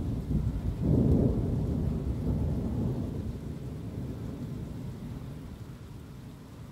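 Thunder rumbling, swelling loudest about a second in, then rolling away and fading slowly.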